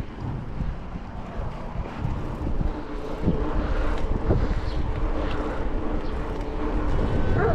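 Wind buffeting the microphone with a heavy, uneven low rumble; a faint steady hum joins in from about two seconds in, with a few light knocks.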